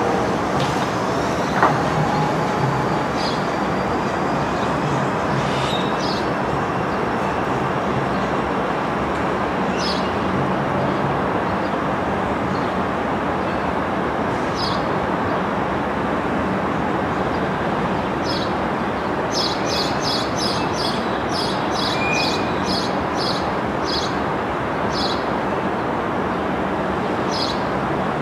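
Steady outdoor rumble with a low hum, and scattered short high chirps, with a quick run of about a dozen about two-thirds of the way through.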